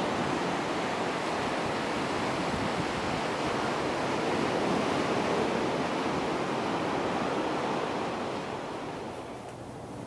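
Atlantic surf breaking and washing up the beach, a steady rushing sound that grows quieter near the end.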